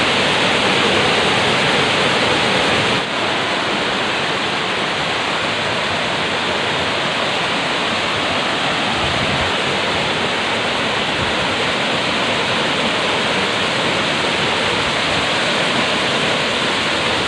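Rushing river water: a loud, steady, unbroken rush of fast-flowing water. It drops slightly in level about three seconds in.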